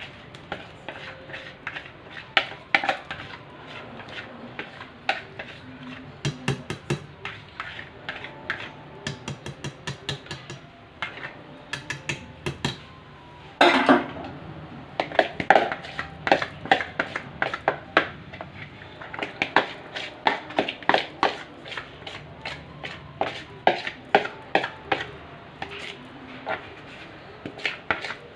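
A utensil clinking, tapping and scraping against a bowl and pan as cake batter is scraped out into a nonstick kadhai. There are many short, sharp taps throughout, with one heavier knock about halfway through.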